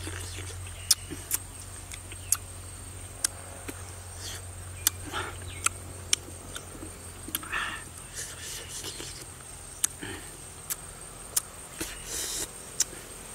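Close-up eating sounds as langsat fruit is peeled and eaten: about a dozen sharp smacks and clicks scattered irregularly, with a few short breathy mouth sounds between them, over a steady low hum.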